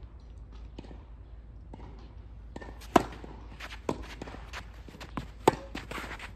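Tennis ball struck by rackets and bouncing on the court in a rally, starting about three seconds in: a few sharp pops roughly a second apart, with shoes scuffing on the court between them.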